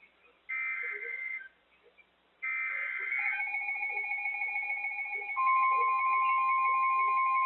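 Emergency Alert System end-of-message data bursts: two short, harsh electronic warbles about a second apart, closing the warning. About three seconds in, a steady electronic alert tone begins, and a second, louder steady tone joins it about five seconds in.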